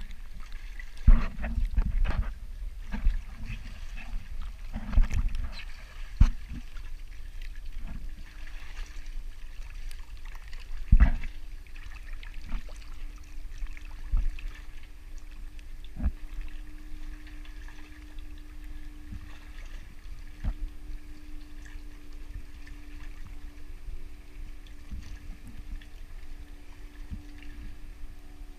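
Sea water lapping and sloshing right at the microphone, with a run of loud splashes and bumps in the first few seconds and another strong one about eleven seconds in, then quieter lapping. A faint steady hum runs underneath from about eight seconds on.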